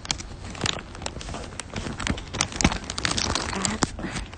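Irregular crackling and rustling close to a handheld phone's microphone, with many sharp ticks scattered through it.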